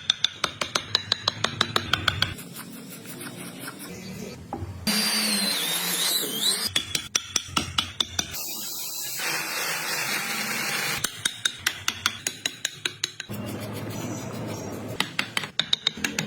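A hand tool, such as a file or rasp, working wood in quick back-and-forth strokes, about six to eight a second, in several short runs, with a few seconds of steadier scraping in the middle.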